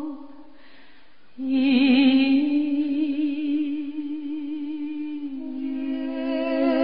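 Live duet singing by a man and a woman: a note fades into a short pause, then about a second and a half in a long held note with vibrato begins, stepping slightly lower near the end.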